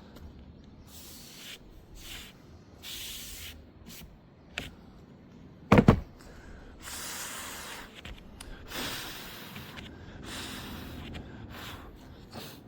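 Handling noises: short bouts of rubbing and scraping with a few light ticks, and one sharp knock about six seconds in.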